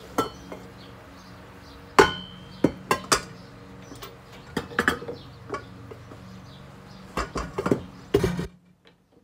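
A steady motor hum under a string of sharp metallic clanks and knocks from a stand mixer's flat beater and stainless steel bowl as the bread dough is worked and scraped out. The hum stops suddenly near the end.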